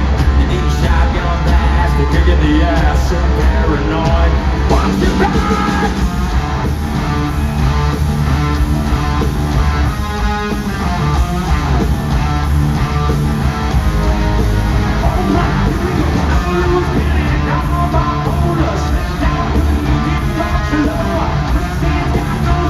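Live hard rock band playing at full volume, with heavily distorted electric guitars, bass and drums and a singer's voice over them, heard through a phone-style audience recording in an arena.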